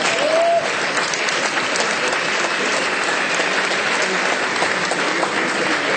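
Audience applauding steadily, starting right after a candidate's name is announced.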